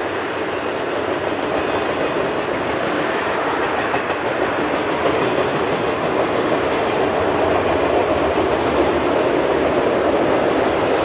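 Freight train of autorack cars rolling past over a concrete overpass: a steady rolling rattle of steel wheels on rail that grows slowly louder.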